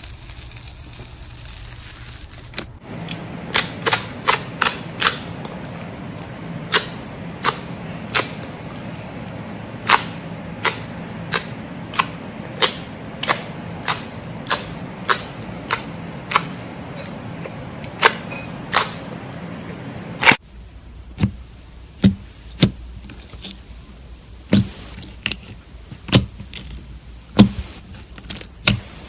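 Slime being worked, giving sharp, irregular clicking pops, one or two a second, over a steady hiss; the pops begin about three seconds in.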